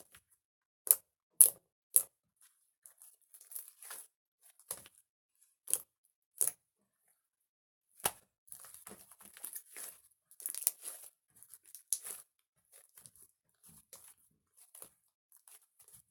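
Close-up handling noises: irregular sharp clicks and taps with short crinkly rustling, busiest for a few seconds past the middle.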